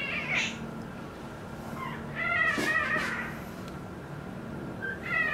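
Newborn puppy crying in high, wavering squeals: a short cry at the start, a longer one about two seconds in, and another beginning near the end, as its freshly docked tail stump is swabbed with potassium permanganate to stop the bleeding.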